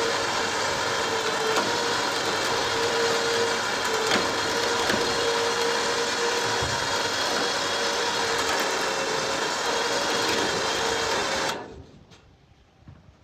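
A motor running steadily with a constant whine as the GMC Envoy is brought up the ramps onto the trailer. It cuts off abruptly near the end.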